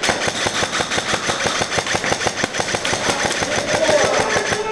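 Airsoft gun firing on full auto in a sustained burst: a rapid, even rattle of shots.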